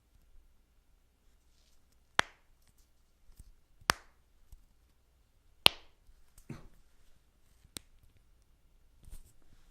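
Human joints cracking, close up: four sharp pops about two seconds apart, with a softer, duller pop between the last two.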